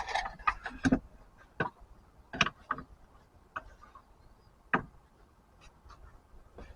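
Irregular sharp clicks and knocks, about ten of them, from the tools of lead sinker casting (mold, steel rod and lead ladle) being handled for a pour.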